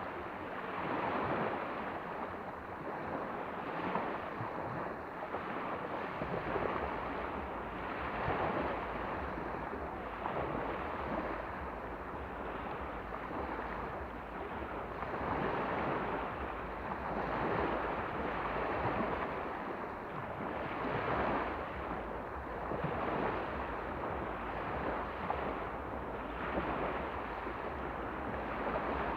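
Sea of Azov waves washing onto the shore, swelling every few seconds, with wind rumbling on the microphone from a few seconds in.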